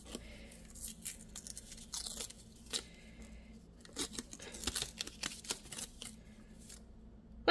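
Adhesive tape being peeled off a rolled paper poster, with irregular faint tearing and paper crackling, and a sharper snap right at the end.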